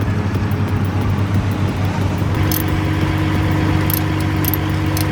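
A vehicle engine running steadily, with a steadier hum joining about two and a half seconds in.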